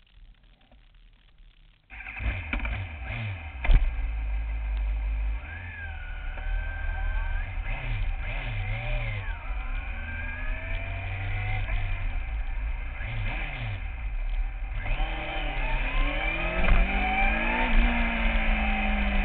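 Kawasaki ZX-6R sport-bike engine (599 cc inline-four) running and being revved. It comes in suddenly about two seconds in, after a faint stretch. Its pitch then climbs and drops again and again, rising more steeply near the end.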